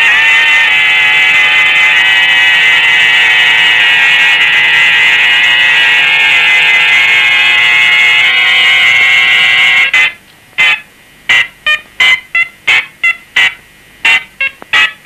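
Loud, steady buzzing, horn-like sound on the film's soundtrack that cuts off suddenly about ten seconds in. A string of short buzzy blasts follows, two or three a second at uneven spacing.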